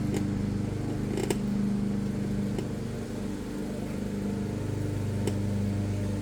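A steady low mechanical hum, with a few sharp clicks and taps from hand work on the bike's shifter and cable.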